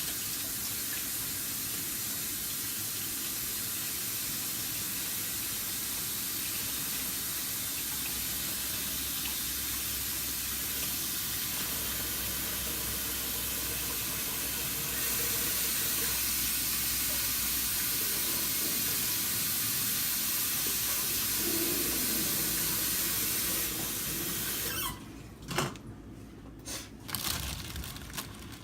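Kitchen tap running into a sink during hand-washing, the flow a little stronger about halfway, then shut off near the end, followed by a few light knocks.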